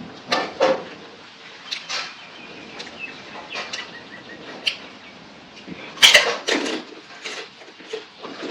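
Close-miked eating sounds: chewing with wet mouth smacks and crunchy clicks at an irregular pace, the loudest bunch about six seconds in.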